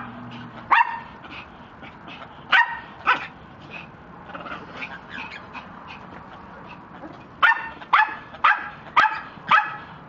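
Small dog barking: a few single sharp barks, then a quick run of five barks, about two a second, near the end.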